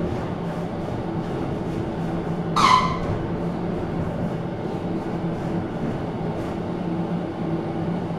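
Steady low hum of a ventilation fan running, with one short, loud squeak about two and a half seconds in.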